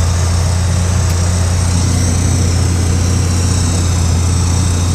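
Tractor engine running steadily while pulling a hay baler, a constant low drone with no break.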